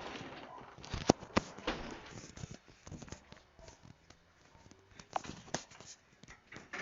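A few sharp light taps and clicks, the loudest about a second in and another pair about five seconds in, with soft rustling between them.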